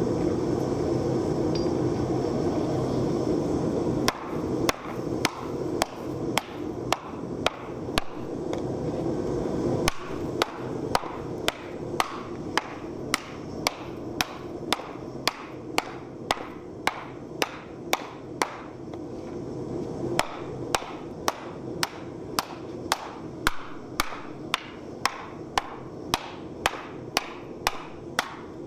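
Hand hammer blows on a red-hot 14-gauge steel wok blank, dishing it into the end grain of a wooden stump. The blows begin about four seconds in and come at a steady pace of about two a second, over the steady roar of a propane forge.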